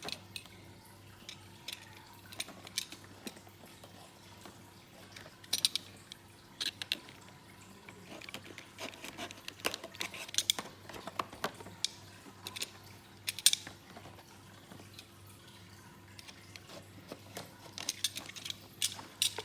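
Hands opening a sealed cardboard toy box: the sealing tape is peeled and the box and its packaging are handled, giving an irregular scatter of small clicks, crackles and scrapes, busiest about five, ten, thirteen and eighteen seconds in. A faint steady hum sits underneath.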